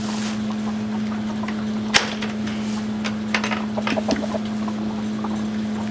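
A steady low mechanical hum runs underneath. About two seconds in there is a sharp click from the coop's wooden screen door latch as it is opened, then a brief flurry of short clucks from the chickens inside.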